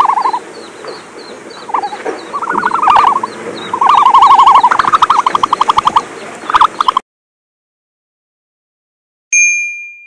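Bird calls: several runs of rapid pulsed calls, each under a second long, with fainter high chirps of small birds behind them, cutting off abruptly. After a silence, a single bright bell-like ding rings out near the end.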